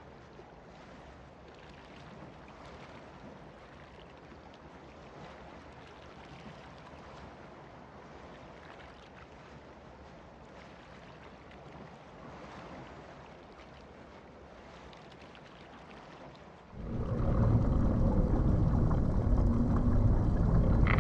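Faint steady noise, then about 17 seconds in a loud, low rumble with a wash of noise cuts in suddenly and holds.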